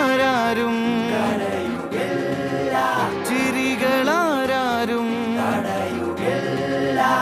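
Background music: a song with a vocal melody sung in long, ornamented phrases that sweep up and down in pitch, over light sustained accompaniment with no bass.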